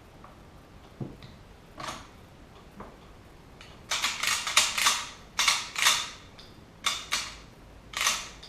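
Steel parts of a Marlin 1894 lever-action rifle clicking and scraping as they are handled during reassembly: a knock about a second in, then a quick run of sharp metallic clicks, several in close pairs.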